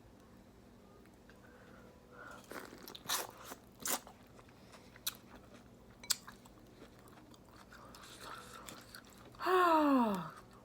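Close-up mouth sounds of eating: crunching and chewing in scattered bursts, with a few sharp clicks. Near the end comes the loudest sound, a single burp under a second long that falls in pitch.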